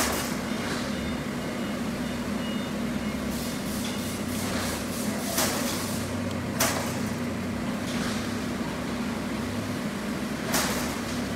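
CNC plasma cutting table humming steadily, with a series of short sharp clicks while the torch height controller's up and down buttons are pressed to move the cutting head.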